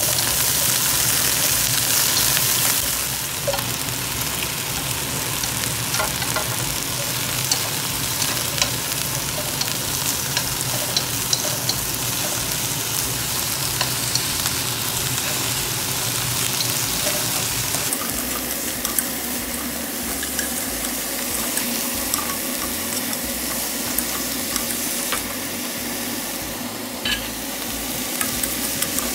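Cauliflower sizzling in a hot nonstick wok while it is stirred with chopsticks, which tick and scrape against the pan now and then. The sizzle is loudest in the first few seconds, just after a splash of water goes into the pan, then settles to a steady frying hiss.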